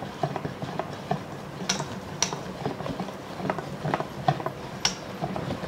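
Wire balloon whisk stirring thick chocolate cake batter in a stainless steel bowl, its wires clicking and tapping against the metal in an uneven rhythm of about three clicks a second.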